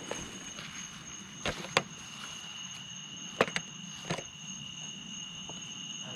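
Night insects chorusing, a steady high-pitched drone at two pitches, with a few sharp clicks in the first few seconds.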